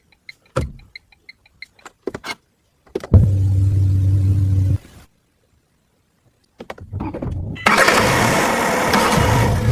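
Sounds of a Tata Tiago NRG car: a run of sharp clicks and short repeated beeps, then a steady low hum that starts and stops abruptly and lasts about a second and a half. After a short silence, a loud noisy sound builds up near the end.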